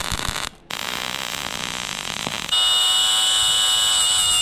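MIG welder crackling as a steel pipe is welded onto a steel bracket plate, with a brief break about half a second in. About two and a half seconds in, a cordless drill starts boring into the tractor's steel cab frame with a steady, high whine, louder than the welding.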